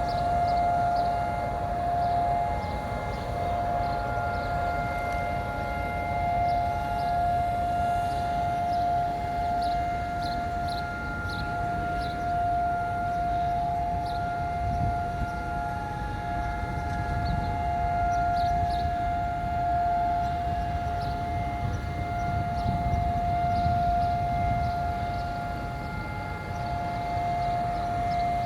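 Israel's civil-defense sirens sounding the steady, unbroken two-minute tone of the Holocaust Remembrance Day memorial siren, over a low rumble.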